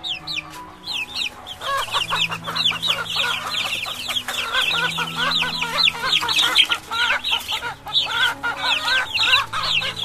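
A flock of birds chirping, with many short high calls overlapping in a dense, rapid chatter that builds up about a second in. Soft background music with held low notes plays underneath.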